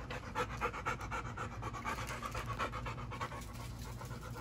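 A large dog panting with her mouth open, in quick, even breaths.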